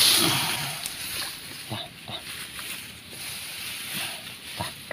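Muddy paddy water splashing and rice stalks rustling at a rice-field eel's hole as a hand works the fishing line, loudest at the very start, then a few soft splashes and rustles.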